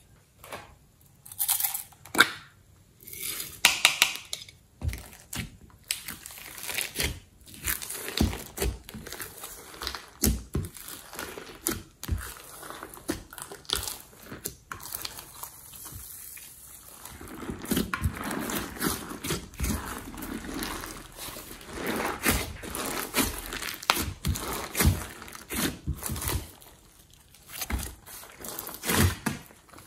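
Hands folding, pressing and kneading glossy slime with glitter mixed in, in a glass dish: a string of irregular sticky squelches, crackles and small pops.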